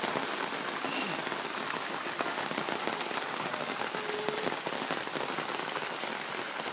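Steady heavy rain, with many separate drops spattering.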